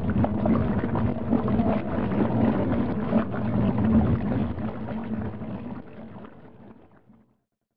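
Churning, foaming water with a low steady hum beneath it, fading out over the last two seconds or so.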